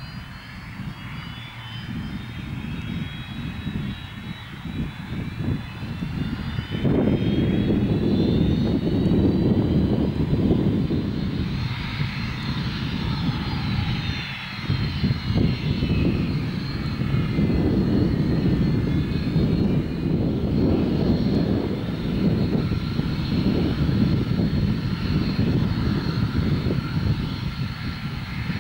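Turbine engines of MD 500 and Mi-2 helicopters running on the ground, their whines rising in pitch as they spool up, over a low rotor rumble. The sound gets louder about seven seconds in and then settles into a steady high whine with several overlapping tones.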